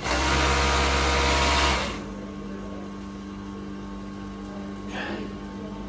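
Industrial overlock sewing machine running at full speed for about two seconds as a seam is serged, then stopping abruptly. A steady low hum carries on after it.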